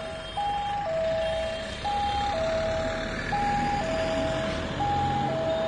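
Railway level-crossing gate's electronic warning alarm sounding as the gate closes: a higher note and a lower note alternating, about one cycle every one and a half seconds.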